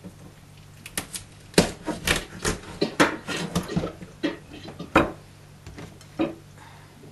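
Kitchen knife cutting at the head and bones of a filleted mejina (opaleye) on a plastic cutting board: an irregular run of sharp knocks and clicks from knife and fish on the board, busiest between about one and five seconds in.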